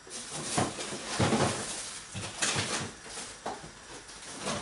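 Irregular knocks, clatters and rustling, several strokes about a second apart, from someone off camera rummaging through kitchen storage for food.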